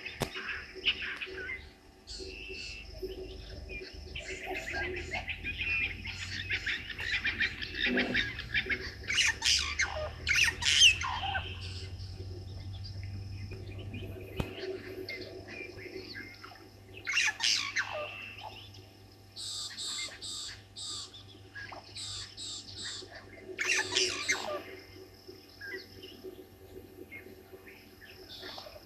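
Natal spurfowls calling: bouts of harsh, rapidly repeated squawking calls, loudest about ten seconds in and again near the middle and two-thirds through, with shorter high notes between the bouts.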